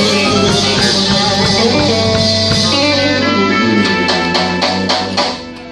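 Live blues band playing: electric guitar, bass guitar and keyboard over drums. The bass drops out after about three and a half seconds, a run of sharp drum hits follows, and the music falls quieter just before the end.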